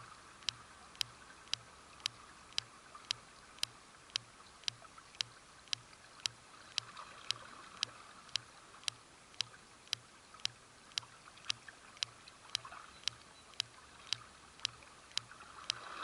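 Steady, regular clicking about twice a second over the faint rush of a creek.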